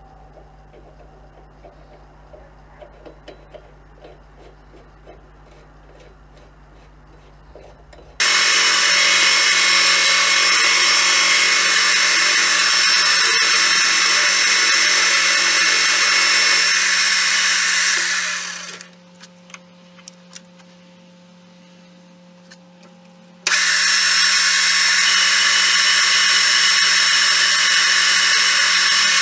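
Small metal lathe turning a steel rod. Faint clicks of handling for about eight seconds, then the lathe starts abruptly and runs loud and steady, spins down about ten seconds later, and after a short pause with a few clicks starts again and runs on.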